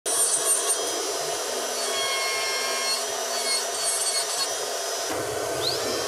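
Dental lab rotary handpiece with a bur grinding the plastic of a custom anti-snoring oral appliance: a steady rasping with a thin high whine. About five seconds in the sound changes, and the whine glides up in pitch.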